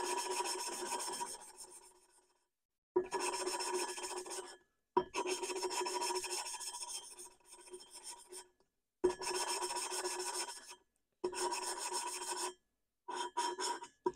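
An aircraft engine's exhaust valve being hand-lapped into its seat in a finned air-cooled cylinder, spun back and forth by a wooden stick rubbed between the palms. It makes a gritty grinding rasp with a slight ringing tone, in about six bouts of one to three seconds with short pauses between. This is a final lapping pass to give the valve a clean, even seal after carbon had held an exhaust valve slightly open.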